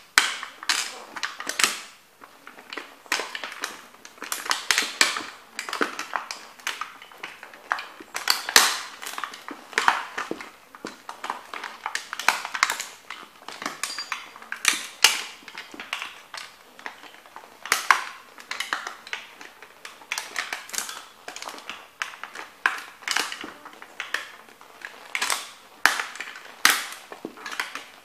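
Vintage toy Corvette car being crushed under stomping leather boots: irregular sharp crunches and cracks of its body bending and breaking, several a second throughout.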